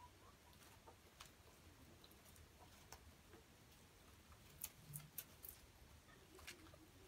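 Guinea pigs nibbling vegetables off a hanging wooden feeder: faint, scattered small clicks and crunches over near silence, with a quick run of several clicks about two-thirds of the way through.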